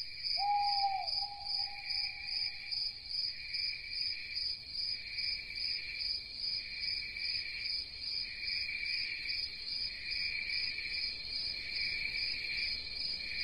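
Night insects, crickets chirring in a steady high-pitched chorus that pulses about twice a second.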